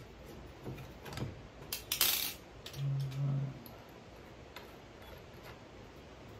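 Small metal clicks and taps of a nut being threaded by hand onto a bolt through a lawn aerator's metal handle and frame, with a louder clatter about two seconds in and a brief low hum around three seconds in.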